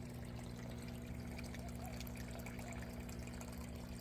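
Water trickling and pouring in an aquaponics system, running steadily, with a steady low hum underneath.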